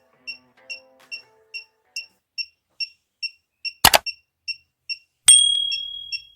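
Piezo buzzer driven by a simple transistor/555 oscillator circuit, beeping with short, high-pitched pulses a little over twice a second. Just before four seconds there is a loud double click. About a second later comes another loud click, followed by a high ringing tone that fades away.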